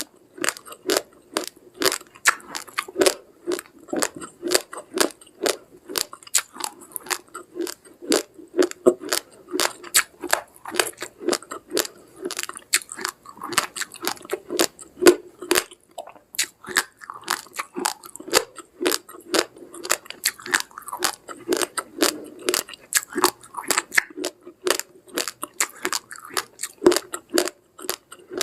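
Uncooked rice grains crunched between the teeth while chewing, a steady run of sharp crunches, a few a second.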